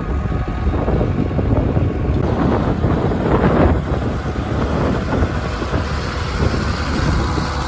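Vintage tractor engine running steadily in the field while ploughing, with wind noise on the microphone.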